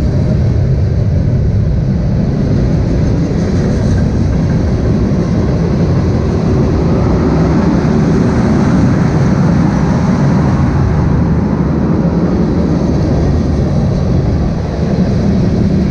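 Freight train rolling past at close range, a steady loud rumble of wheels on rail.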